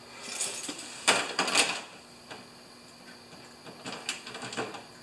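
A padlock, keys and the steel chain around a toolbox being handled: a few short metal rattles and clicks, the loudest about a second in.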